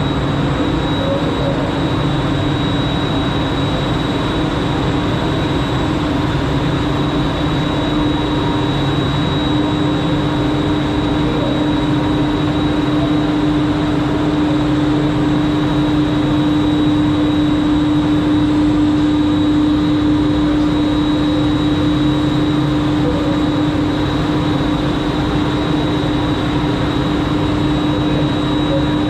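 Aerial ropeway drive machinery running in its machine room: a loud, steady mechanical hum with a constant low tone and a thin high whine over it.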